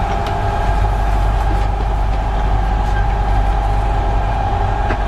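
Sailboat's 85-horsepower inboard diesel engine running steadily under way, a continuous low drone.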